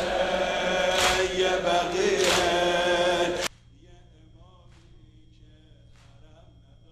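Crowd of mourners chanting a lament together, with sharp chest-beating slaps (sineh-zani) about every 1.3 seconds. About halfway through the chanting cuts off abruptly, and only faint chanting and slaps go on at the same pace.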